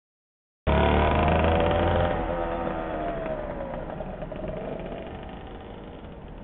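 Suzuki RGV250 Gamma's two-stroke V-twin riding away under power after a short silent gap. Its exhaust note climbs briefly, then drops in pitch and fades as the bike moves off into the distance.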